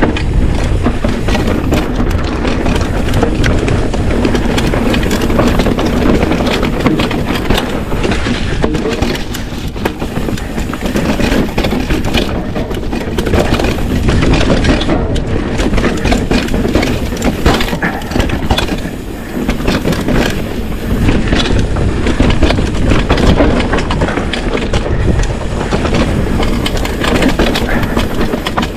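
Trek Slash mountain bike riding fast over a rocky gravel trail: tyres crunching over loose stones, with a constant rattle and clatter from the bike and a low rumble of wind on the helmet camera.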